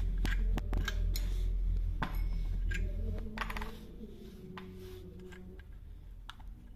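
Sharp metal clicks and clinks of chainsaw parts being handled as the clutch drum is lifted off the crankshaft. The clicks are thickest in the first three seconds. A steady low hum drops away about three seconds in.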